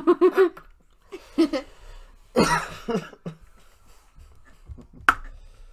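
Stifled laughter in short bursts, with a cough about two and a half seconds in and a sharp click near the end.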